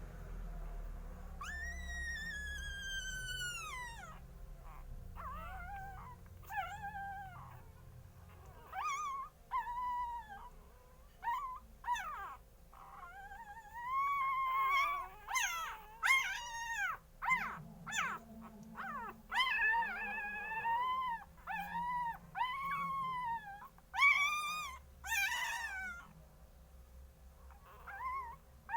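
Young puppies whining and crying: one long cry that falls away at its end, then many short high-pitched cries one after another, the cries of hungry puppies.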